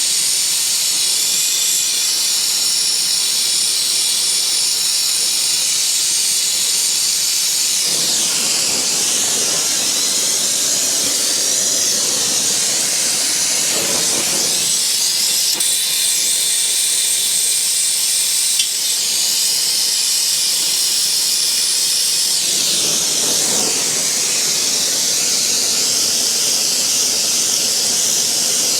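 Gas torch burning with a steady, loud hiss that shifts in tone a few times, heating the aluminium cylinder to free a seized head stud.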